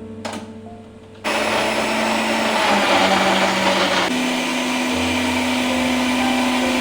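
Philips electric blender starting up about a second in and running at full speed, a steady whirring motor whose pitch steps up slightly about halfway through as it blends juice; it cuts off suddenly at the end.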